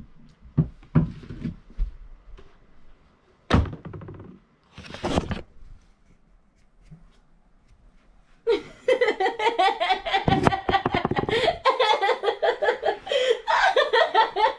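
Knocks and thumps as the camera is grabbed and handled, a few in quick succession at the start and a heavier one a few seconds in. About halfway through, long, loud, high-pitched laughter breaks out in quick pulses and runs on.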